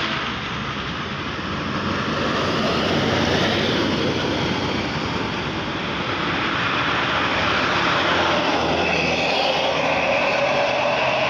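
Large bus driving past on the road, its engine and tyre noise rising and easing.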